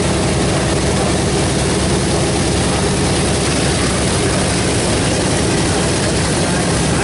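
Boeing B-17G Flying Fortress's Wright R-1820 Cyclone nine-cylinder radial engines running steadily with the aircraft standing on the ground, props turning.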